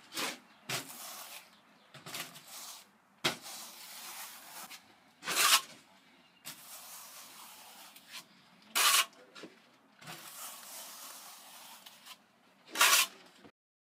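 Steel trowel feathering wet stucco base coat over embedded mesh on a wall: soft swishing strokes with about six short, sharper scrapes, cutting off suddenly near the end.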